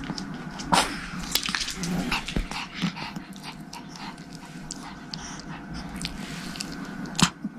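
Small Pomeranian dogs making excited dog noises while begging for treats, over a busy run of short taps and scuffles, with sharper hits about a second in and near the end.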